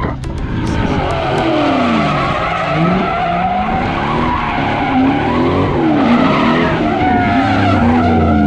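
Chevrolet Corvette's V8 drifting: the engine revs rise and fall again and again as the throttle is worked, over a steady squeal of sliding tyres.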